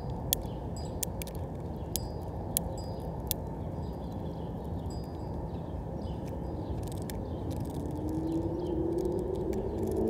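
Irregular sharp clicks, some with a short high ring, as a house finch pecks and cracks sunflower seeds against the clear plastic seed tray of a platform feeder. Under them is a steady low rumble, and a low hum rises in pitch near the end.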